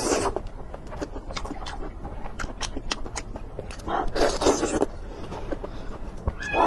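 Close-miked eating sounds: scattered sharp chewing clicks, with two longer noisy bursts, one at the start and one about four seconds in.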